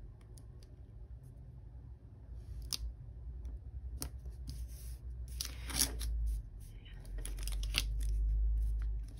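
Washi tape being peeled off its roll and pressed onto a paper planner page, with light paper rustles and taps and a short ripping rasp a little past halfway. Near the end a hand rubs the page flat with a steady low rubbing.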